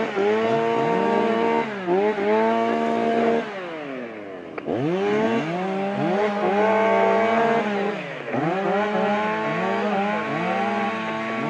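Two-stroke chainsaw run in repeated bursts at full throttle: its pitch sweeps up as the throttle opens, holds high, and drops when it eases off. About three and a half seconds in it winds down to idle, then revs back up about a second later.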